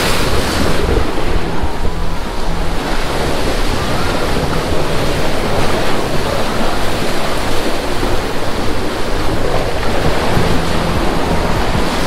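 Ocean surf washing steadily, mixed with wind, with gusts buffeting the microphone in an uneven low rumble.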